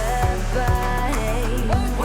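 Background pop song with a female-sounding sung melody over a steady beat.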